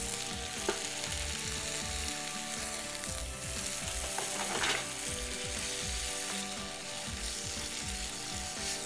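Mixed vegetables sizzling in a frying pan with added water, stirred with a wooden spatula that scrapes now and then. The sizzle is steady throughout.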